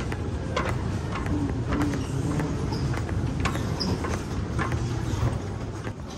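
Airport terminal ambience: a steady low hum of a crowded hall with footsteps and sharp clicks every half second or so.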